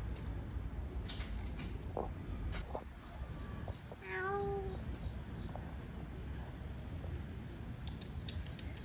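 Steady high-pitched drone of a summer insect chorus, with low handling and wind rumble. About four seconds in a short pitched call, voice-like, rises briefly above it.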